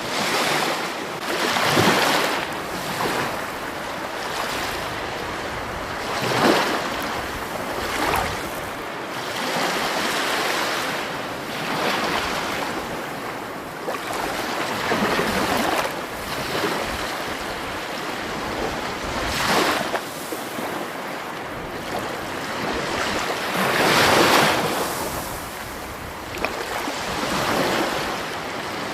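Rushing water, a continuous hiss that swells and surges irregularly every few seconds, loudest about 24 seconds in.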